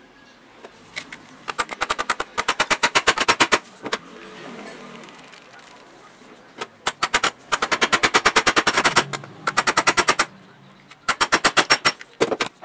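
Impact driver hammering in three short bursts of rapid, even clicks, backing screws out of the jig saw's aluminium gear housing.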